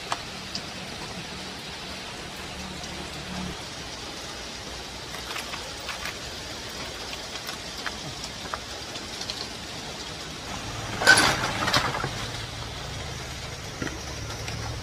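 Small metal tools and fittings clinking as a hand rummages through metal toolbox trays: scattered light clicks, with a louder rattle about eleven seconds in. A low steady hum runs underneath.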